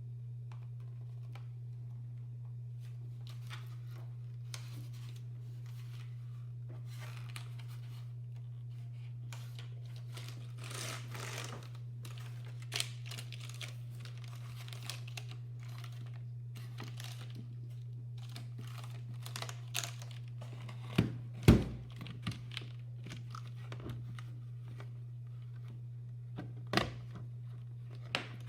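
Hands working on the parts of a mechanical keyboard: scattered small clicks and rustling, with a few sharp knocks about two-thirds of the way in and again near the end, over a steady low hum.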